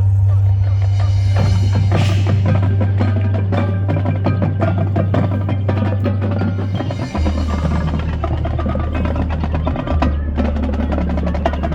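Marching band playing its field show, with mallet percussion and drums prominent over a held low bass note that drops in pitch about seven seconds in.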